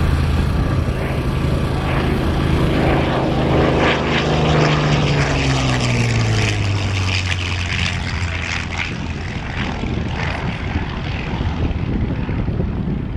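P-40 Warhawk fighter's piston engine in a low, fast flyby. The engine note drops steadily in pitch from about four seconds in as the plane passes, then fades into a steady drone.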